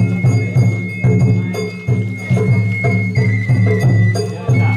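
Sawara-bayashi festival music from a float's geza-ren band: a bamboo flute holds a long high note over a steady beat of taiko drums. The flute steps down slightly about three seconds in and back up near the end.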